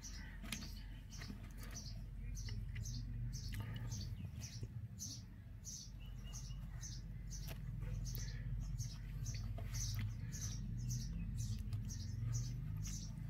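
Indian robin nestlings in the nest giving thin, high begging cheeps, repeated evenly about two to three times a second, over a steady low hum.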